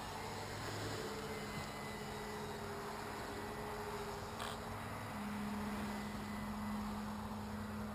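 Distant electric RC model C-47's twin counter-rotating propellers droning steadily over a faint hiss, the pitch shifting a little about a second in and again about five seconds in. A single brief click a little past the middle.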